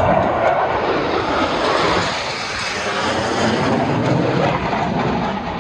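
Jet noise from F/A-18 Super Hornets flying past: a loud, continuous rush that eases slightly in the middle, with a faint sweeping quality as the jets pass.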